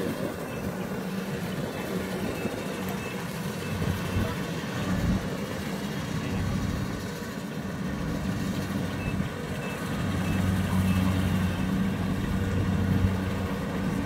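Kubota rice combine harvester's diesel engine running steadily as the machine works in the paddy, a low hum that grows a little louder in the second half.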